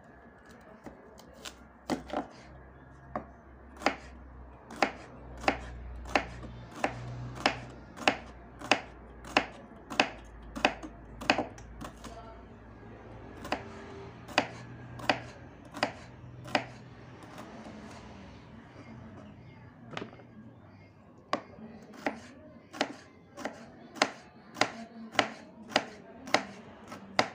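Knife slicing bitter melon thinly on a wooden cutting board: a sharp knock of the blade against the board with each cut, about one and a half cuts a second, with a break of a few seconds past the middle.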